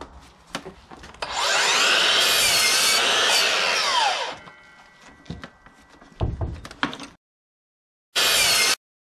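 Sliding compound miter saw spinning up, cutting through a board for about three seconds, then winding down, followed by a few knocks of the wood being handled. A short loud burst of similar sound cuts in near the end.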